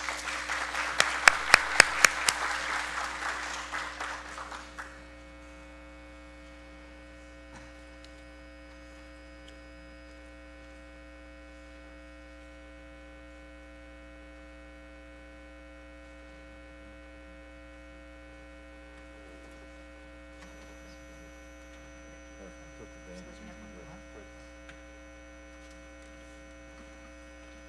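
An audience applauding, with a few louder single claps, dying away about five seconds in. A steady hum remains after it.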